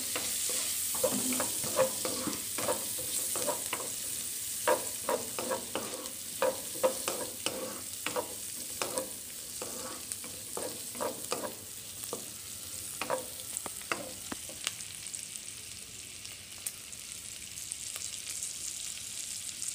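Shallots, garlic, ginger and chili frying in melted butter in a nonstick pan, sizzling steadily. A wooden spatula stirs them, knocking and scraping against the pan many times, with the strokes thinning out over the last few seconds.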